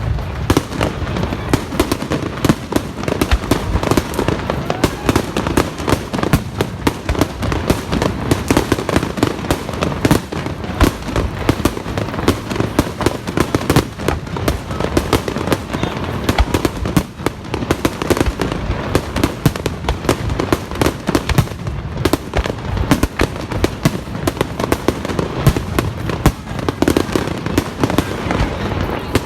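Fireworks going off in a dense, continuous barrage: many sharp bangs and crackles every second, with no let-up.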